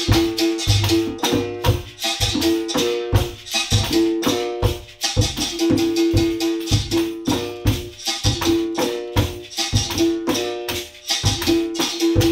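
Capoeira percussion trio playing a steady rhythm together: a berimbau struck with a stick, alternating between two notes, with its caxixi basket rattle shaken in the same hand; a conga drum slapped and thumped by hand; and a tambourine's jingles.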